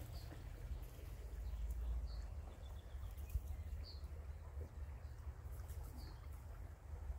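Wind rumbling on the microphone, with a bird giving a short high chirp about every two seconds.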